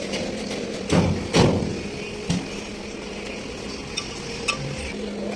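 Metal parts knocking against a tractor engine frame as they are handled: two loud knocks about a second in, a lighter one shortly after, and a few small clicks near the end, over a steady low hum.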